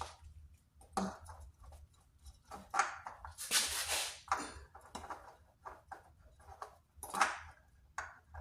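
Irregular scraping and rustling handling noises with a few light clicks as a new oil filter is worked onto its threads by hand.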